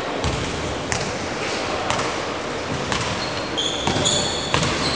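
Basketballs bouncing on a hardwood court in a large sports hall, irregular thuds at about one every half second to second from several balls. High sneaker squeaks on the court floor come in near the end.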